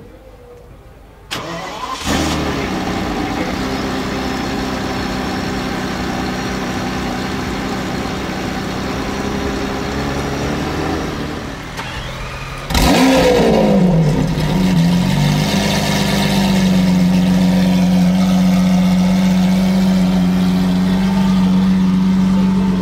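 Ferrari F50's V12 starting up about a second and a half in and settling into a steady idle. About halfway through, a Lamborghini Aventador Hamann Nervudo's V12 fires up louder, its pitch sweeping up and falling back, then settles into a steady idle.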